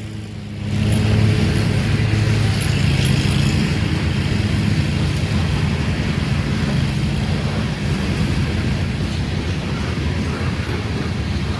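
Grain train passing the crossing: a steady low diesel drone over a continuous rolling rumble, a little louder from about a second in.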